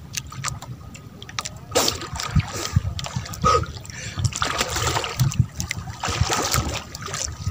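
Sea water splashing and trickling, with scattered small clicks and knocks.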